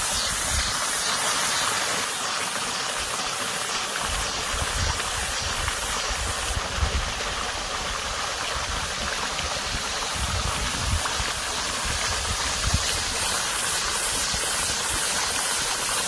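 Water running steadily in a small stream, with a cicada's high, pulsing buzz over it and occasional low rumbles.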